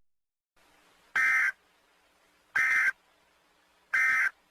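Emergency Alert System end-of-message data bursts: three short, identical buzzy digital tones about 1.4 s apart, signalling that the alert message has ended.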